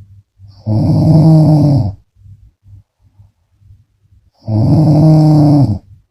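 A woman snoring loudly: two long, pitched snores a little under four seconds apart, each lasting over a second, with faint rhythmic breathing between them.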